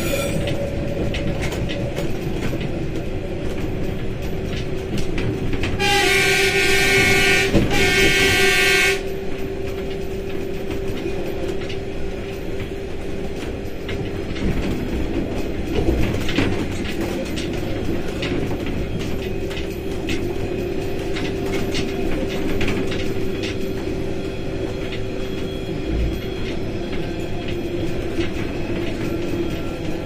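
Locomotive horn sounding about six seconds in: a blast of roughly two seconds, then a short second blast right after. Around it, the locomotive and its wheels run steadily on the rails with a constant hum and occasional clicks of the wheels over the track.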